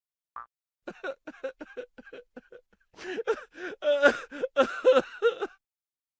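A laughing sound effect: short, rhythmic bursts of laughter that grow louder and denser about three seconds in, then stop abruptly.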